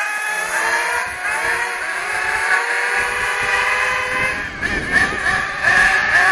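Radio-controlled model car's small engine running at speed, a high buzz that shifts up and down in pitch as the throttle changes.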